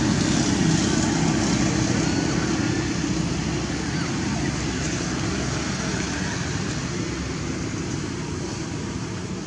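A steady low rumble that slowly fades, with a few faint short chirps above it.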